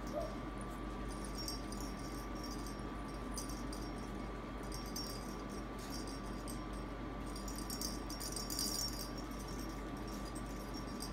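Small jingle-ball toys hanging from a pet play gym rattling and jingling on and off as Maltese puppies wrestle underneath and bump them, loudest about eight to nine seconds in. A steady low hum runs underneath.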